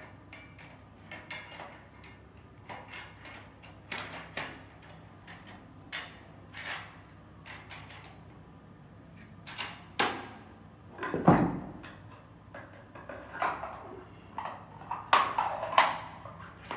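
Clicks, scrapes and knocks of a semi-automatic shotgun being assembled by hand, the barrel being fitted over the magazine tube onto the receiver, with one heavier clunk about eleven seconds in.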